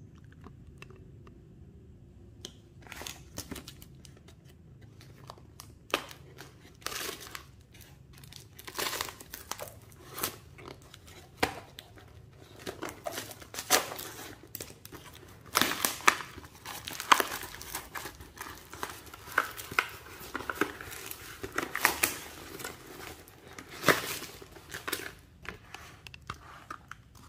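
A tape-wrapped brown paper parcel being torn open by hand, with irregular crinkling and tearing of paper, packing tape and plastic wrapping, starting about two seconds in.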